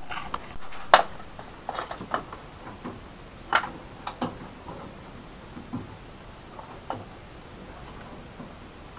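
Irregular clicks and light knocks of parts and fasteners being handled as engine-bay components are refitted, the sharpest about one second and three and a half seconds in.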